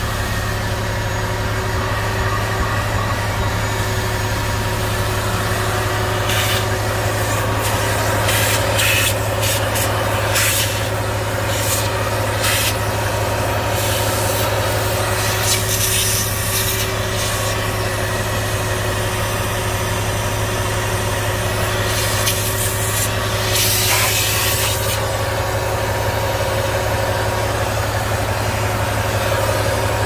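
Vacuum cleaner running steadily as its hose nozzle is worked over a truck's dashboard and controls, giving irregular short hissing, scraping bursts of suction through the middle stretch. A steady low hum runs underneath.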